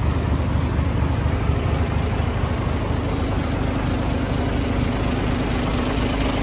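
Isuzu Giga heavy truck's diesel engine idling steadily.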